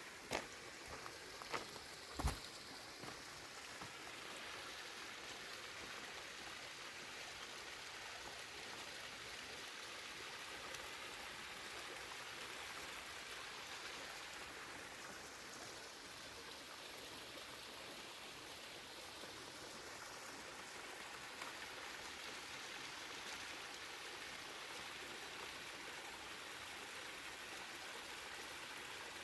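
Running water of the Bayehon stream and waterfall: an even, steady hiss. A few sharp knocks sound in the first couple of seconds.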